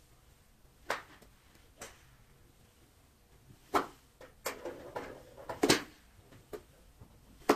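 Driver striking a golf ball off a tee, a sharp crack a little under four seconds in, among several other sharp clicks and knocks, one nearly as loud about two seconds later.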